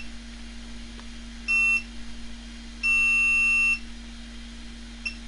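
Digital multimeter's continuity beeper sounding as the probes touch points on a laptop motherboard: a short beep about a second and a half in, then a longer beep of about a second. The beep signals that the probed point has continuity to ground.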